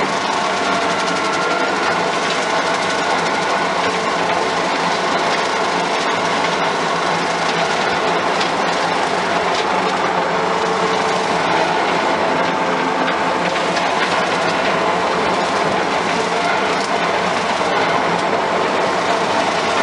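Skid steer running steadily under load, driving a rotary mower deck that was converted from PTO drive to a hydraulic motor.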